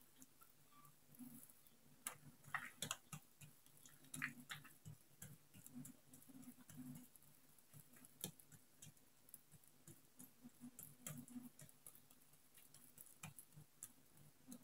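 Hands patting and pressing oiled dough out thin on a marble countertop: faint, irregular soft slaps and sticky clicks over a faint low hum.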